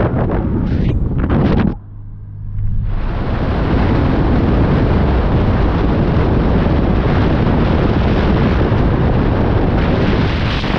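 Heavy wind noise on the microphone of a camera held out of a moving car's window at motorway speed, mixed with road and car noise. About two seconds in it drops for about a second to a quieter low, steady hum, then the wind noise builds back up and holds.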